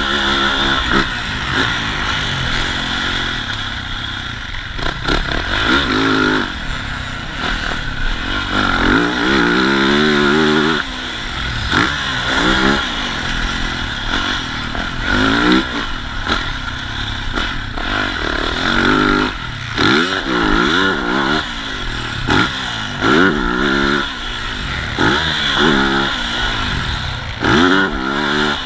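Dirt bike engine revving hard and easing off again and again as the bike is ridden around a motocross track, its pitch climbing in repeated runs and dropping back between them.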